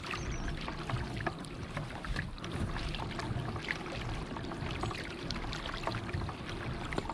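Water lapping and trickling against the hull of a Perception Pescador Pilot 12 pedal-drive fishing kayak moving slowly while trolling. Light scattered ticks and small splashes run through a steady wash of water noise.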